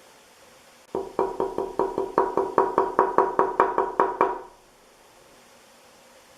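Quick run of wooden knocks on a solid teak ceiling-fan blade, about four a second and each briefly ringing, lasting about three seconds.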